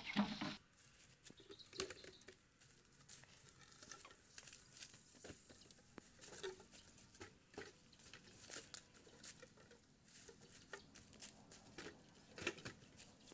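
Lengths of freshly cut green bamboo knocking and clattering lightly against each other as they are picked up and loaded into a basket, with scattered clicks and leaf rustle. A louder knock comes right at the start.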